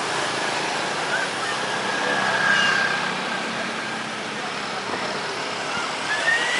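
Loud, steady engine noise with a thin high whine, which rises in pitch near the end.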